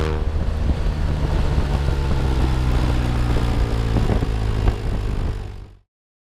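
BMW R1200R boxer-twin engine falling back from a rev and settling into a steady low idle, with a few small pops. The sound fades out quickly near the end.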